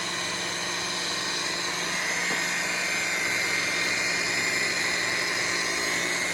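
Rotary buffer with a wool pad running at low speed, compounding a car's clear coat: a steady electric motor whine over a whirring hiss, growing a little louder about two seconds in.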